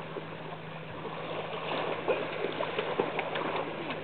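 Gentle surf washing in over a shallow sandy beach, with scattered small splashes of water and a steady low hum underneath.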